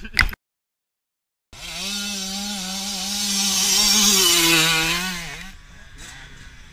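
Dirt bike engine passing close by: a steady buzz that grows to its loudest about four seconds in, drops in pitch as the bike goes past, and fades about a second later. Near the start the sound cuts out completely for about a second.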